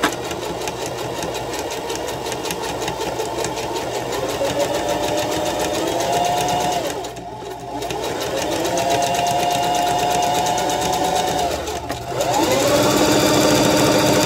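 Singer Heavy Duty 44S electric sewing machine stitching through layered denim, its motor running up to speed and easing off in three runs with two brief stops, the last run the fastest and loudest.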